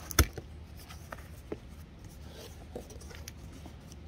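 Cardboard box being opened by hand: scratchy rubbing and scraping of cardboard, with one sharp knock just after the start and scattered small clicks.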